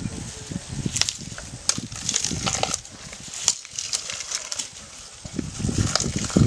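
An Asian elephant feeding on a pile of grass stalks: the stalks rustle, crackle and snap as she pulls them up with her trunk and chews them, in scattered irregular bursts.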